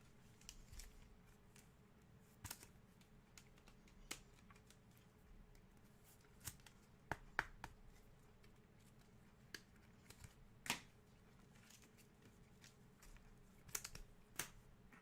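Faint, scattered clicks and snaps of 2021 Panini Mosaic football trading cards being handled and sorted through, a dozen or so sharp ticks at uneven intervals.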